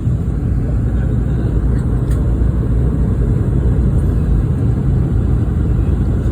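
Steady low rumble inside the cabin of a Boeing 717-200 in flight: airflow noise and its two rear-mounted Rolls-Royce BR715 turbofan engines. A faint click sounds about two seconds in.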